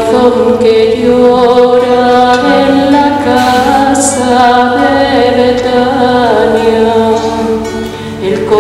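A hymn sung slowly in long held notes, accompanied by an acoustic guitar.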